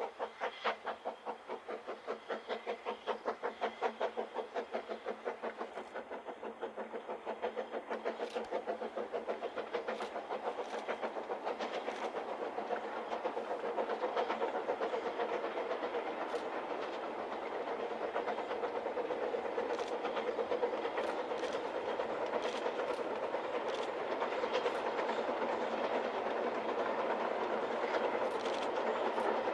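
Narrow-gauge steam locomotive hauling a train, its exhaust chuffing in a rapid, even rhythm. The beats grow louder over the first half as the train draws nearer, then hold steady.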